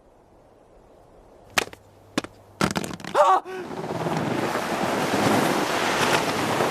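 Film soundtrack effects: a few sharp cracks and bangs, the last with a brief wavering tone, then a steady rushing roar that swells and holds.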